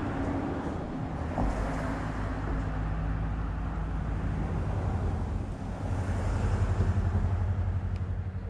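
A motor engine's low, steady hum that swells to its loudest near the end, as of a vehicle passing.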